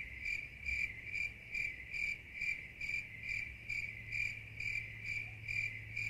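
Crickets chirping, dubbed in as a sound effect: a high chirp repeating steadily about twice a second over a faint low hum. It is the 'crickets' gag for dead silence, laid where the crowd's ovation should be.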